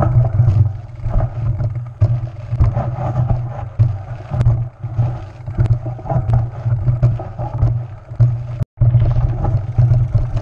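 Mountain bike ridden fast over a rough dirt trail, heard from a handlebar-mounted camera: a steady low rumble with wind on the microphone, and frequent sharp knocks and rattles as the bike jolts over bumps. The sound cuts out for an instant about eight and a half seconds in.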